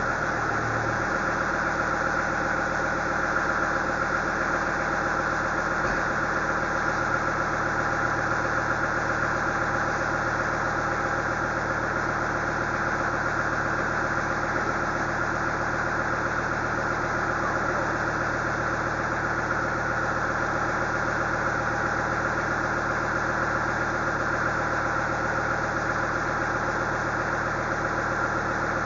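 Engine of a loader idling steadily.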